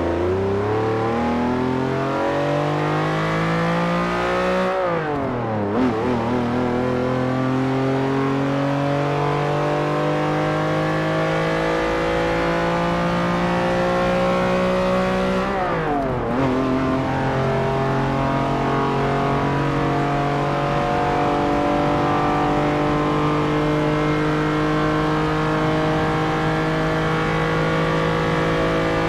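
Lamborghini Countach V12 engine accelerating hard through the gears. Its pitch climbs, falls sharply at gear changes about five and sixteen seconds in, then climbs slowly again and holds high.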